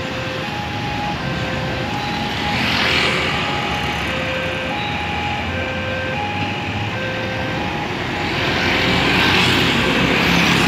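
Railway level-crossing warning alarm sounding a repeating two-tone signal, alternating low and high notes, while a train passes the crossing. Road traffic runs steadily underneath, with vehicles passing close by about three seconds in and again near the end.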